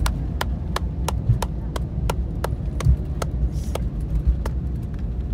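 A man clapping his hands steadily, about three claps a second, to applaud the landing, over the steady low rumble of an Airbus A350-900's cabin as it rolls along the runway.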